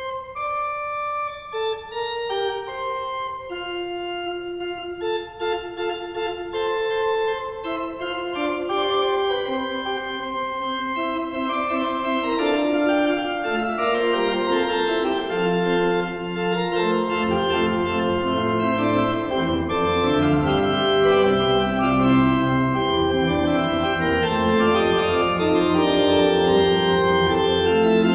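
Pipe organ being played: the piece opens with a single melodic line, further parts join one by one, and deep pedal bass notes come in a little over halfway through as the music grows gradually louder.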